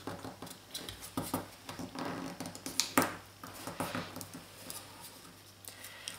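Square of origami paper being folded and creased by hand: irregular crinkling and rustling with scattered crackles, the sharpest about three seconds in, then it dies down after about four and a half seconds.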